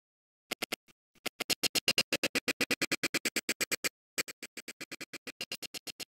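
Audio scrubbing in the HitFilm Express video editor: the project's soundtrack stutters out in short repeated snippets, about eight a second, as the playhead is dragged along the timeline. It starts about half a second in, stops briefly near four seconds, then carries on more quietly.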